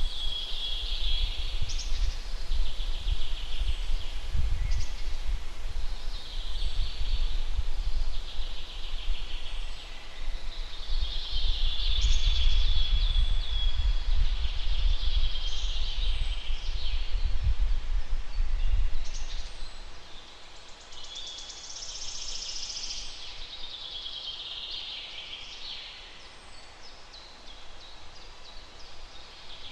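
Wild songbirds singing, with a song phrase every few seconds. Under them runs a low, gusty rumble of wind on the microphone that dies down about two-thirds of the way through.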